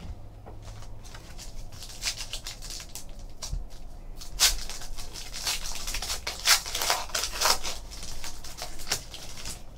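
Foil trading-card pack from a 2014-15 Panini Select basketball box being torn open and its wrapper pulled apart, a run of sharp crinkling crackles.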